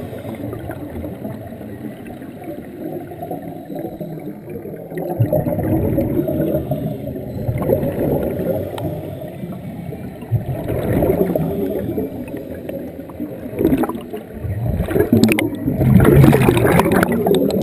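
Scuba divers' exhaled air bubbling and gurgling out of their regulators underwater, swelling in surges every four to five seconds with each breath.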